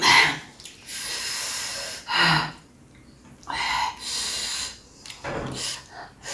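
A person breathing loudly in and out, close to the microphone, in a run of hissing breaths about half a second to a second long.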